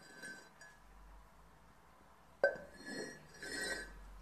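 Ceramic mugs being set down and moved on a wooden floor: one sharp clink about two and a half seconds in, with fainter clinks before it and softer, ringing handling sounds after it.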